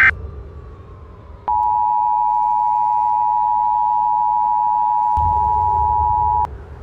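Emergency Alert System attention signal: two steady tones sounded together, starting about a second and a half in and cutting off abruptly about five seconds later, over a low rumble.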